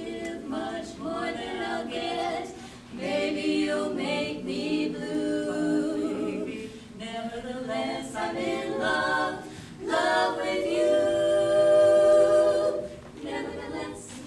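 Women's barbershop quartet singing a cappella in close four-part harmony, swelling to a loud held chord about ten seconds in, then a short closing phrase.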